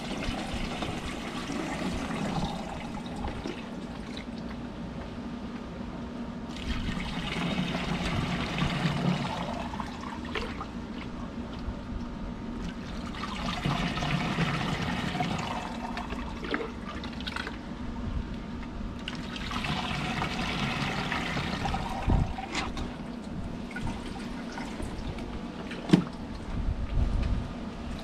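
Water pouring from a basin into the plastic tank of a 16-litre backpack sprayer through its strainer basket, the flow swelling louder three times. A short knock near the end.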